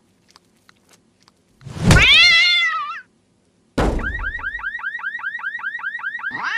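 Cartoon sound effects: about two seconds in, a thud with a short wavering yowl. Then another thud and a car alarm's warbling tone, about five rising chirps a second.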